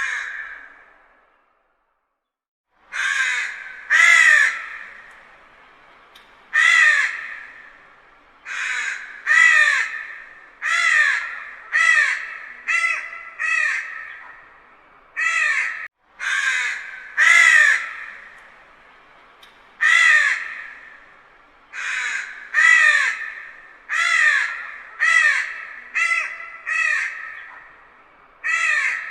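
Crows cawing, many harsh calls one after another in irregular runs, each call trailing off in an echo. A short silent gap comes about two seconds in.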